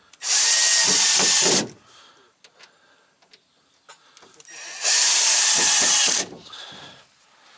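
A power drill run in two bursts of about a second and a half each, the second about four seconds after the first.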